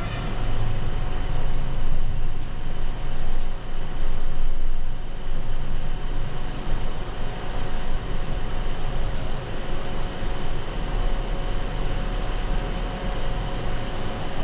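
Pot of herbal decoction heating towards a boil on a stove: a steady low rumble under an even hiss, with a faint hum.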